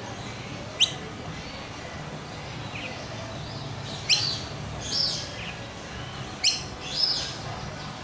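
Swamphen chicks peeping: about five short, high, sharp chirps that sweep quickly in pitch, spaced a second or more apart, the loudest about halfway through and again later on.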